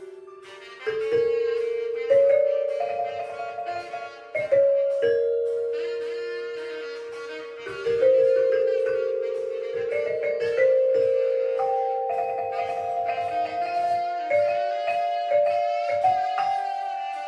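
An ensemble playing a slow melody on tuned bell-like percussion. Each struck note rings on for several seconds and overlaps the next.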